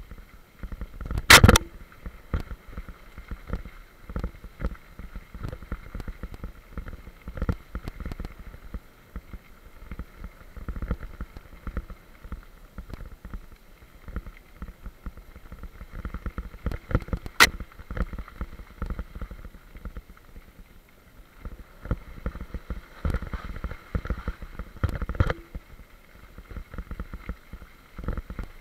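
Bicycle rolling fast down a gravel forest track, with a constant uneven rattle and knocking from the bike over the bumps. There is a louder knock about a second and a half in and a sharp crack near the middle.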